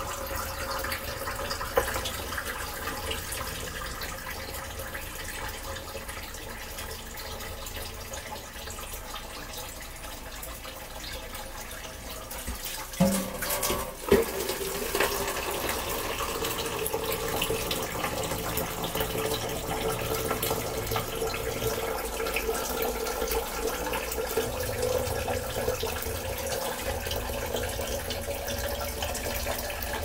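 Water poured from a plastic cup over a person's hair as it is rinsed, splashing into a stainless steel kitchen sink. There are two short knocks about thirteen seconds in.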